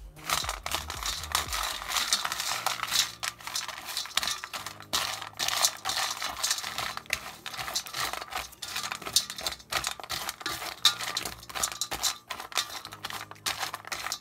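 A plastic spoon stirring dry kibble and canned wet dog food together in a stainless steel bowl: a dense, continuous clatter of kibble pieces and the spoon scraping and knocking against the metal.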